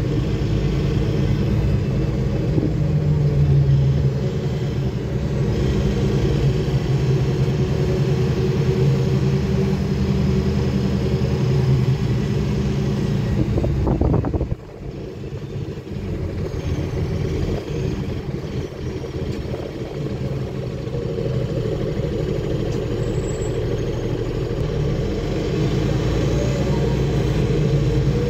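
Steady engine and drivetrain rumble of a 2009 Nova Bus city bus under way, heard from inside the cabin along with road noise. About halfway through, the rumble drops off suddenly and then builds back up gradually over the following seconds.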